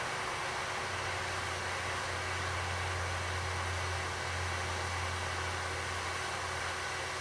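Electric blowers on a wood gasifier running steadily, drawing air through the hearth to heat the char bed during start-up: an even rushing noise with a low hum that swells about two seconds in.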